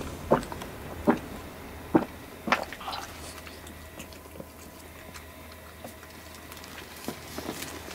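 A cat retching after eating cat grass: a series of sharp heaves about every 0.7 seconds, wet-sounding, then quieter from about three seconds in. It is bringing up the grass, as cats do to clear hairballs from the stomach.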